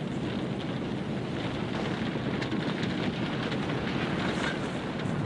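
A large fire roaring steadily, with faint crackles scattered through it.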